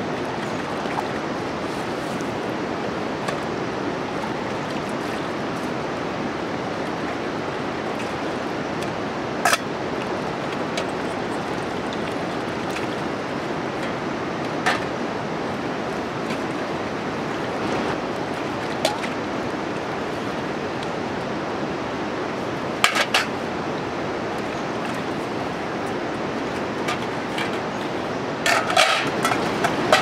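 Steel plates and bowls clinking sharply now and then as they are washed by hand, with a small clatter of several clinks near the end, over a steady rushing background noise.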